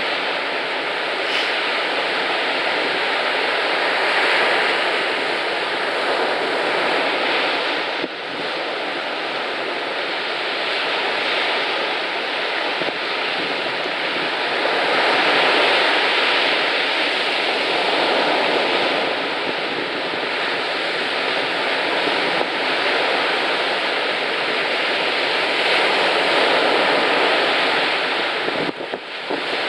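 Sea surf breaking on a sandy beach, swelling and easing every several seconds, with wind on the microphone.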